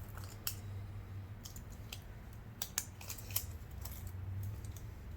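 Light, sharp clicks and taps at irregular intervals, from small tools and plastic phone parts being handled during the repair, over a low steady hum.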